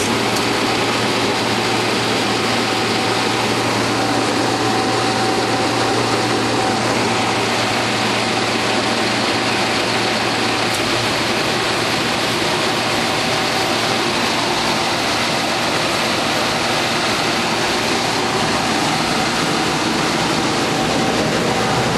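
Kelley kerosene torpedo heater running: a loud, steady rush of its fan and burner over a low hum, with a faint whine that fades out about seven seconds in.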